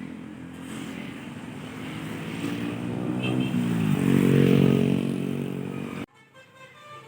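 A tour bus passing close by, its pitched sound swelling and sliding down in pitch about halfway through, loudest near the end. It cuts off abruptly just before the end.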